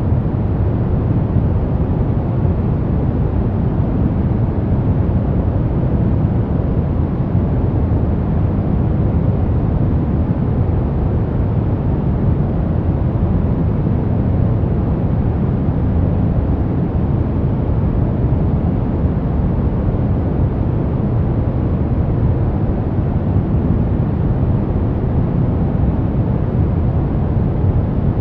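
Steady sleep white noise, weighted toward the low end so it sounds like a deep hush rather than a bright hiss. It stays the same throughout.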